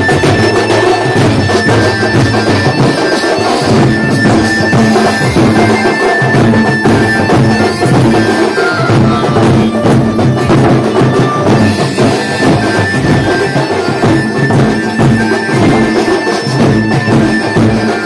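Loud traditional procession music from a cart-mounted rig of horn loudspeakers: a reedy wind-instrument melody over a steady drum beat.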